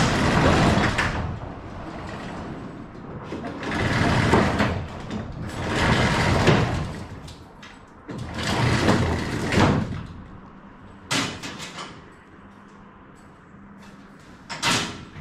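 Corrugated steel roll-up door rattling open as it is raised by hand in four loud surges of about a second each, then a few sharp clacks.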